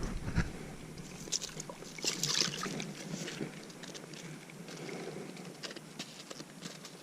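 Faint rustling and scattered small clicks, like gear or a fish being handled, over a soft steady hiss of wind on the microphone.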